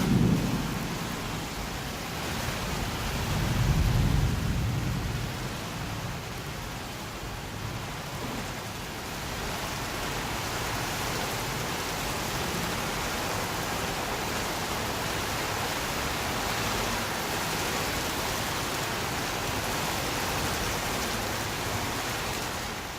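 Steady rain falling, with low rumbles of thunder right at the start and again about three to five seconds in.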